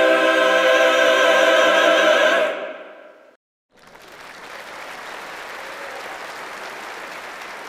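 Mixed choir holding a final sustained chord that fades out after about three seconds. After a brief silence, a steady spell of applause begins.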